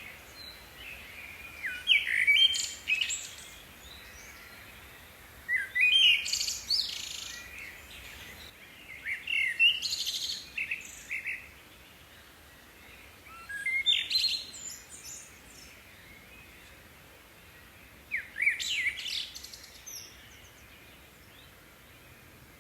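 A songbird singing short phrases of quick whistled notes, five phrases spaced about four seconds apart.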